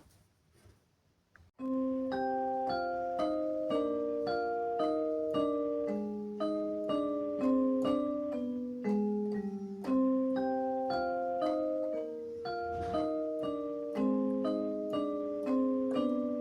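Background music: a gentle melody of struck, ringing notes over soft chords, starting about a second and a half in.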